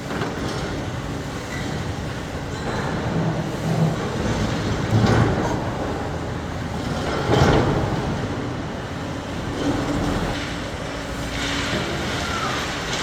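A motor vehicle running: a steady noisy rumble, with louder knocks about five seconds and about seven and a half seconds in.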